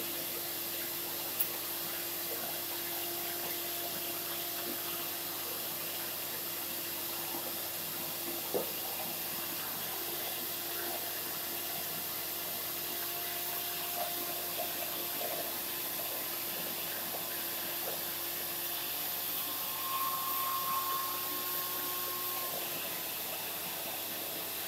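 Vacuum cleaner running steadily: an even hiss with a faint hum, and a couple of light knocks.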